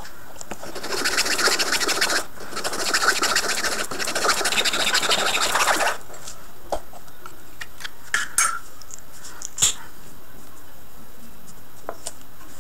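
Hacksaw cutting through a bamboo tube: fast, rasping back-and-forth strokes for about five seconds with one brief pause, then a few light clicks as the cut pieces are handled.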